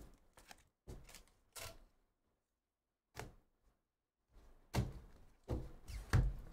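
Sports cards in hard plastic holders being handled and set down on a table mat: scattered light knocks, a pause of about a second, then several louder thunks in the last two seconds.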